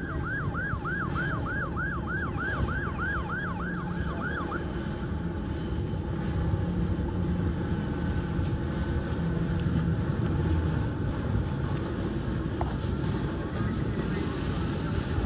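Emergency siren in a fast yelp, about four rising-and-falling sweeps a second, cutting off about four and a half seconds in, over a steady low rumble.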